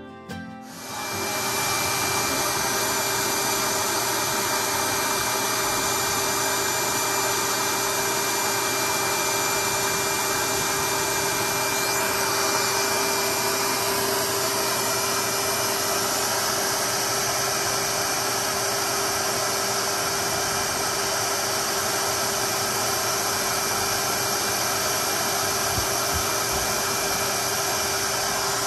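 Pet dryer (forced-air blower) switching on about a second in and then running steadily with a loud, even rush of air.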